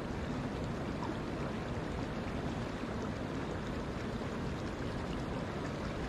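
Shallow woodland stream flowing steadily over mossy rocks.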